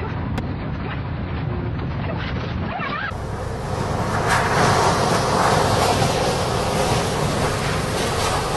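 Tornado winds rushing and buffeting the microphone, a dense noise that changes at a cut about three seconds in and grows louder after it.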